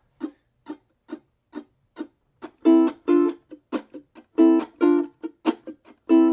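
Ukulele strummed in a choppy rhythm: at first only short muted chucks, about two a second, then from under three seconds in short ringing chords alternate with the chucks.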